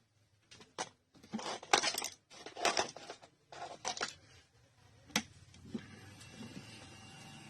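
Handling noise on a phone-repair bench: several short rustling, crinkling bursts of small parts and tools being handled, then one sharp click about five seconds in. A faint steady hum with a thin whine sets in near the end.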